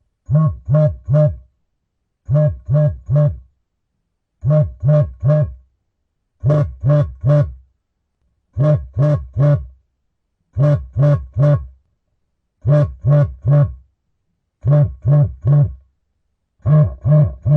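Mobile phone vibrating: buzzes in groups of three short pulses, the groups repeating about every two seconds with silence in between.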